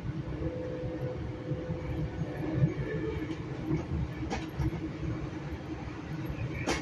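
Steady running rumble of wheels on rails, heard from inside a Metrolink passenger car moving at speed. There is a sharp click a little before the end.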